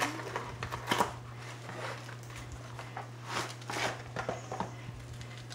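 A cardboard pizza box being opened and handled: a few short scrapes and rustles, about one second in and again around three and a half to four seconds in, over a steady low hum.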